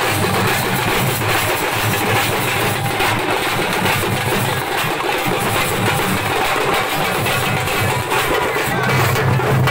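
A band of Tamil procession drums playing together: parai frame drums struck with thin sticks along with larger barrel drums, beating a dense, unbroken rhythm.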